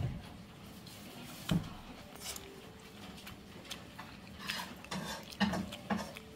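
Metal chopsticks picking up stir-fried shredded potatoes from a plastic food container: a few light taps and clicks, the sharpest right at the start and about a second and a half in.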